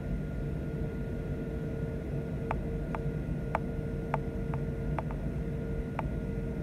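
Inside the cabin of a Boeing 737-800 rolling on the ground: the CFM56 turbofans' steady low rumble with a held hum, and a run of about eight sharp clicks in the second half.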